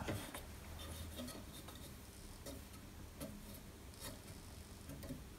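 A few faint, scattered clicks and light taps of a clamp lever being worked, tightening a plastic end stop onto its bar.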